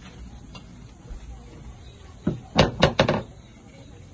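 Knocking on a door: four quick, loud knocks a little past halfway through, over a low steady room background.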